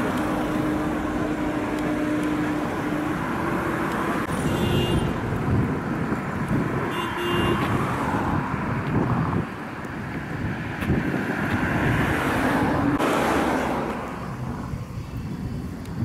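Engines running under a steady outdoor rumble, one engine's hum stepping up slightly in pitch about three to four seconds in.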